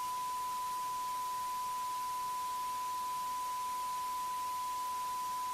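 A steady electronic test tone: one pure, unchanging pitch held without a break, over a faint hiss.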